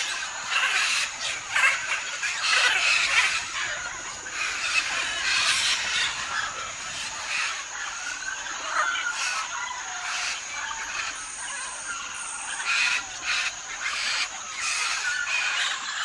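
A flock of parrots and macaws squawking and screeching together: a dense, overlapping chorus of short, harsh calls with no let-up.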